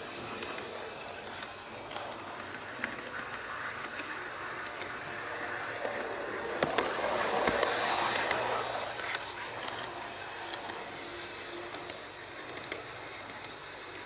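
Heljan Class 128 parcels railcar model running smoothly on DC. A gentle singing motor note and the wheels rolling on the track grow louder as it passes close by about eight seconds in, with a few light clicks, then fade as it runs away.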